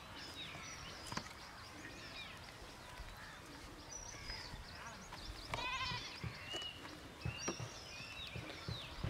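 Small birds chirping in short falling notes, with a goat bleating once, a quavering call about halfway through. Soft knocks come in the second half as a metal rod pries at cracked dry mud.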